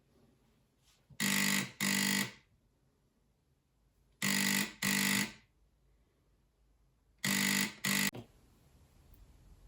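The Ericofon DBJ 500's compact built-in buzzer sounding an incoming call in a double-ring cadence: two short buzzes in quick succession, repeated three times about every three seconds.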